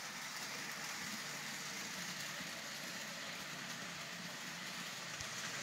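Steady hiss with a faint low hum, room tone with no distinct event.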